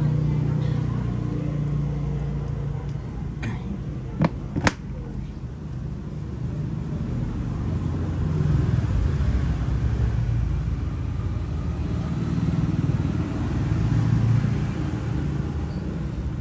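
Steady low rumble of road traffic, with two sharp clicks about four seconds in.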